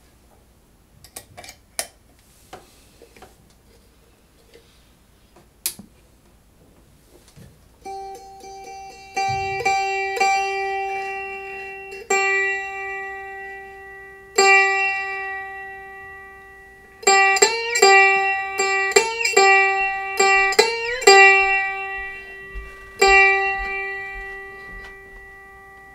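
Homemade one-string diddley bow with a tin can body, yardstick neck and piezo pickup. After a few scattered clicks, the single string is plucked again and again on one note from about eight seconds in, each pluck ringing out and fading. A little past the middle, several plucked notes bend up in pitch and slide back down.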